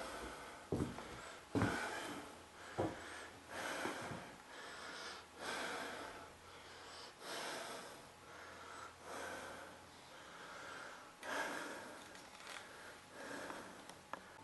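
A person breathing heavily close to the microphone, each breath a soft rush of air coming every second or two. There are a few soft thumps in the first few seconds.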